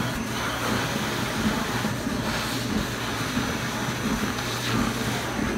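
Build-A-Bear stuffing machine's blower running steadily, blowing fiberfill through the nozzle into a plush monkey: a rush of air over a low hum.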